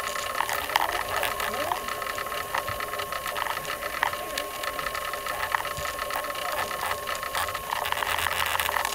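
Rapid, irregular clicking of a computer keyboard and mouse over a steady background hiss.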